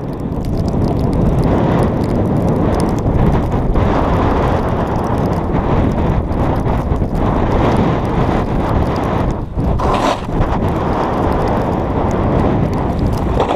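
Steady rushing noise of wind buffeting an action camera's microphone, mixed with a snowboard sliding fast over snow while it is towed on a rope.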